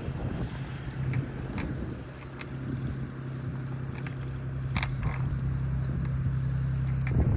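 Mechanical clicking and rattling from a spinning reel being cranked while bringing in a fish, over a steady low hum.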